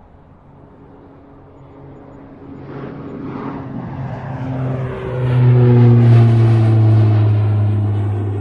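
Airliner passing close overhead: its engine noise swells over several seconds, peaks about six seconds in, and begins to fade as its engine tones drop in pitch.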